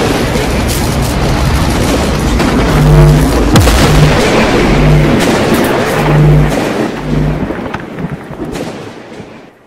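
Cinematic logo-intro sound effects: a dense crackling, rushing noise with deep booms, and a run of about five low pulsing hits roughly a second apart from about three seconds in, fading away near the end.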